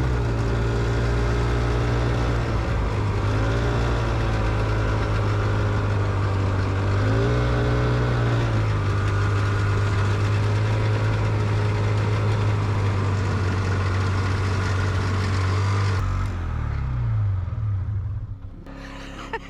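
Snowmobile engine running as it pushes through deep snow, revving up twice. About three-quarters of the way through it slows and winds down to a stop.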